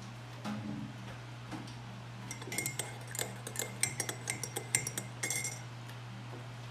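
Metal cutlery clinking against a dish or cup: a quick run of light, ringing clinks lasting about three seconds, over a steady low hum.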